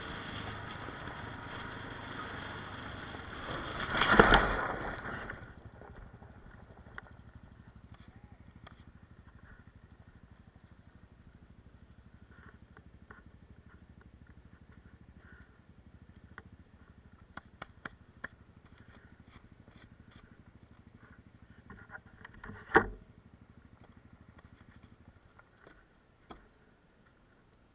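Kawasaki KLR650 single-cylinder motorcycle riding on a gravel road with wind on the microphone, then about four seconds in a loud skid and crash lasting a second or two as the front wheel washes out under hard front braking and the bike goes down on the gravel. After that the engine is no longer heard; there are scattered small clicks and rattles and a sharp knock about 23 seconds in.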